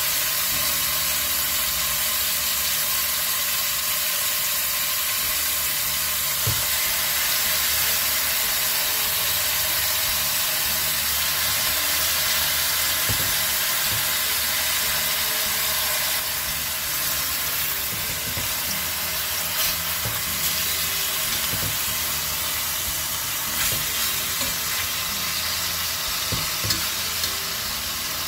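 Marinated beef chunks searing in hot lard in a stainless-steel pot: a steady sizzle that eases a little about halfway through, with a few sharp clicks of metal tongs against the pot as the meat is turned.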